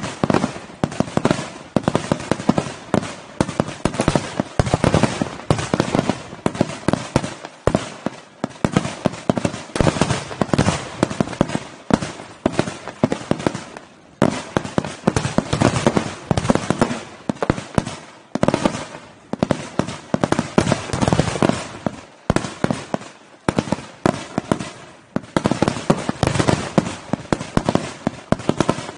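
Low-level fireworks set off on the water, going off in a dense barrage of sharp bangs and crackles, many per second, coming in waves with a few brief lulls.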